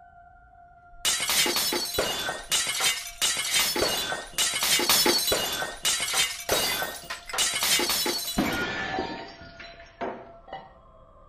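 Glass bottles shattering: a run of about seven loud crashes, roughly one a second and overlapping, each followed by tinkling shards. Near the end they die away into a few scattered clinks of falling glass.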